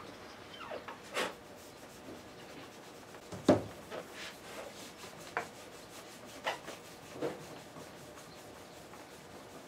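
Intermittent scraping and rubbing on wood with a few knocks, the loudest about three and a half seconds in: a hand reamer and fingers working the tuner holes of a mahogany guitar headstock, opening them for press-fit tuners.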